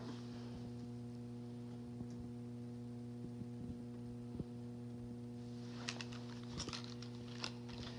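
Steady electrical hum with evenly spaced overtones. A few light clicks and rustles come in the last couple of seconds.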